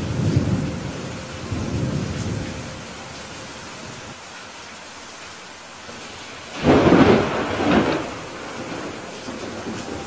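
Steady rain with thunder. A low rumble rolls through the first couple of seconds, then a sudden loud thunderclap comes about two-thirds of the way in, peaking again a second later before fading back into the rain.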